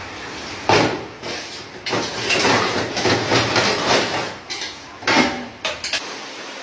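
Household clatter: a rapid run of bangs, knocks and clanks, loudest about three-quarters of a second in and again about five seconds in.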